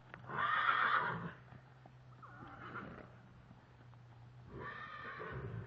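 A horse whinnying twice, each call about a second long: a loud one near the start and a softer one near the end.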